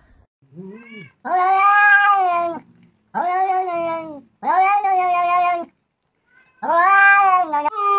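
Domestic cat meowing: a short, quiet meow, then four long, drawn-out meows, one after another with short pauses between them.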